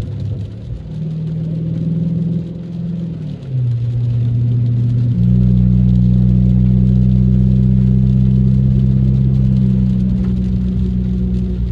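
Dodge Charger R/T's 5.7-litre Hemi V8 droning inside the cabin while driving. Its pitch drops about three and a half seconds in, then at about five seconds it gets louder and holds a steady drone.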